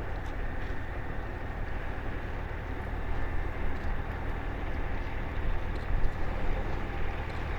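Boat engine running steadily, a low even hum under a wash of noise.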